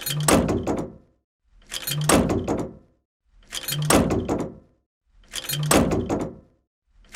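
Tank door being shut, a sudden sharp impact with a low thud that dies away within about a second. The same close repeats about every two seconds: four times, with a fifth starting at the very end.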